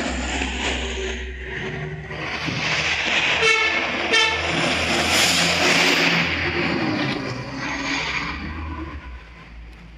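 A large bus passing close by, its engine and tyre noise swelling to a peak in the middle and fading near the end, while it sounds a multi-tone 'telolet' horn.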